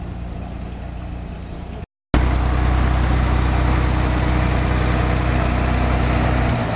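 Diesel engine of a narrow-gauge railcar idling close by, a steady low hum. It drops out for a moment about two seconds in, then comes back much louder and eases slightly near the end.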